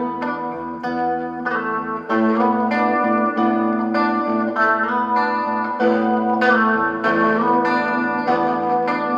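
1960s Supro Super electric guitar rig being played: sustained notes and chords changing every second or so, a continuous melodic passage.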